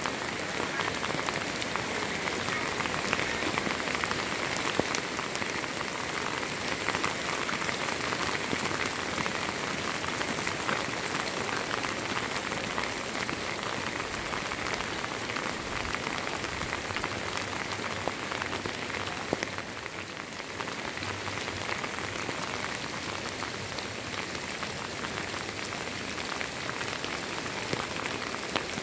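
Heavy rain falling steadily, a dense patter of drops.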